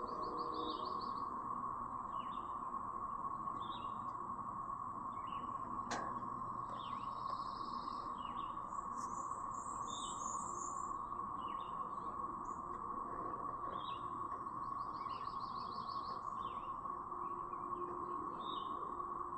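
A dense chorus of periodical cicadas (the 2024 Brood XIX emergence) making a steady, siren-like drone, with songbirds chirping and trilling over it. A single sharp click sounds about six seconds in.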